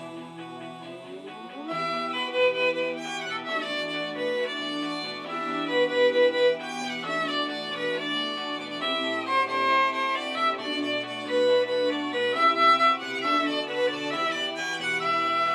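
A violin played by a self-taught beginner of under three months, bowing the melody of a J-pop rock song over a karaoke backing track. The music gets louder and fuller about two seconds in.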